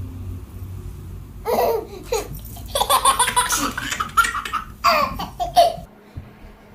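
A baby laughing in three bursts, about a second and a half in, around three seconds in, and near five seconds in.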